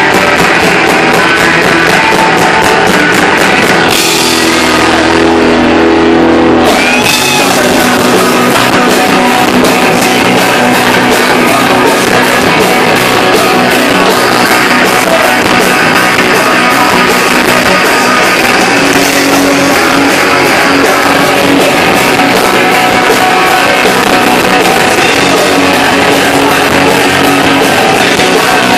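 Rock band playing loud live with electric guitar, bass and drums. About four seconds in the drums drop out and a chord rings on for a few seconds, then the full band comes back in.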